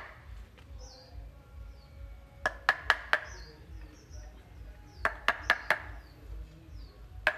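Wooden mallet striking a steel chisel as it carves into the wood of a fig (Ficus) bonsai stump: a run of four quick knocks, another run of four a couple of seconds later, and a single knock near the end.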